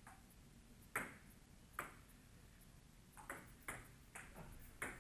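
Table tennis rally: a celluloid-type ping-pong ball clicking sharply off the paddles and the JOOLA table top about six times at an uneven pace.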